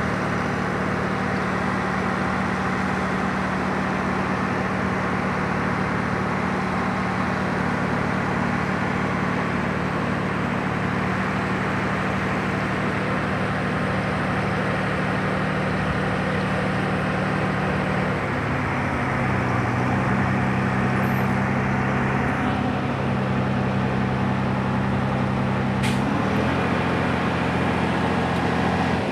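A vehicle engine running steadily under a constant noise haze. Its tone shifts slightly about two-thirds of the way through and again near the end.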